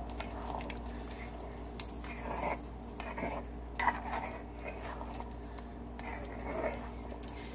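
Spoon stirring a pot of gumbo and scraping roux down off the pot's sides: faint, irregular scrapes and swishes of liquid, a few a little louder, over a steady low hum.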